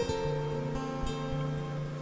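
Acoustic guitar music, plucked and strummed notes.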